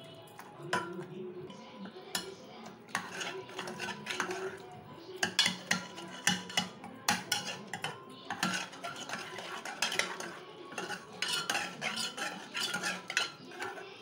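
Steel ladle scraping and clinking against the inside of an aluminium pressure cooker while mashing and stirring cooked tomatoes, a quick irregular run of clinks and scrapes.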